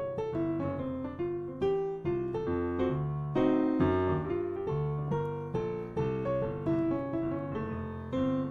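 Piano playing a jazz ii–V–I in F: sustained left-hand chords under a right-hand improvised line of single notes built on an A major triad over the C7, giving its 13, flat 9 and third.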